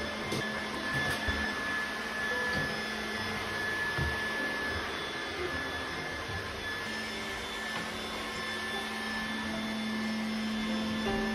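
Trifo Lucy robot vacuum cleaner running, a steady motor whir with a constant high tone, and a few light knocks in the first few seconds.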